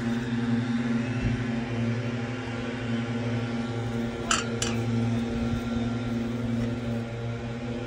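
A steady mechanical hum, with two short sharp clicks close together about halfway through.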